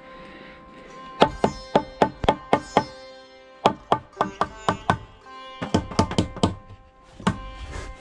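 Hammer blows in quick runs of six or seven strikes, about four a second, with short pauses between runs. Each strike rings, typical of a hammer driving nails into timber framing.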